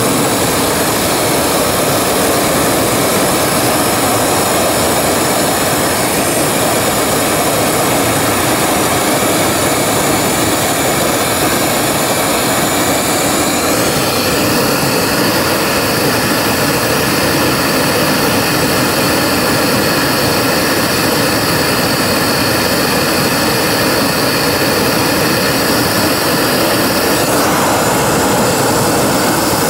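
A 500,000 BTU propane torch burning at full output, a loud, steady rush of flame.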